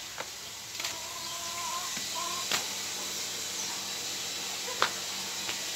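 Steady hiss of running water, with a few sharp clicks and a brief thin wavering tone about a second in.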